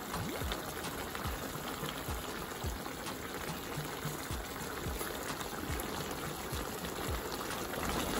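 Brown stew sauce with fish and vegetables simmering in a frying pan, bubbling steadily as it cooks down.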